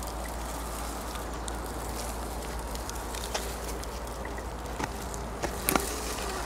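Brushed 35-turn electric motor of an Axial Honcho RC crawler whining faintly as the truck creeps over leaf litter and stones, with a few sharp clicks in the second half, the loudest near the end.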